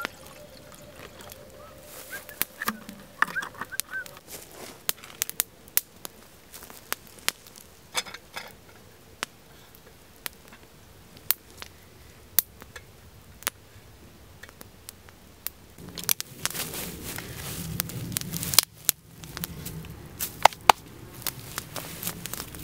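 Wood campfire crackling, with irregular sharp pops and snaps from the burning firewood. From about two-thirds of the way in, a louder low rushing noise joins the crackle.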